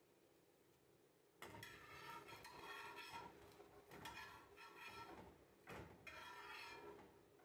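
Faint scrapes and taps of a slotted spatula on a frying pan as a cabbage patty is turned, starting about a second and a half in.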